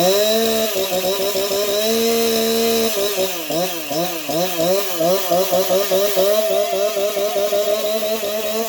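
Jonsered CS2152 two-stroke chainsaw running, its throttle blipped over and over so the engine pitch swings rapidly up and down, held steady at high revs for about a second near the start.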